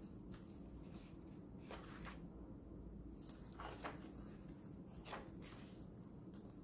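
Paper pages of a ring-bound junk journal made from a vintage Little Golden Book being turned by hand: soft, brief page rustles and flicks, several of them spread through the clip, over a low room hum.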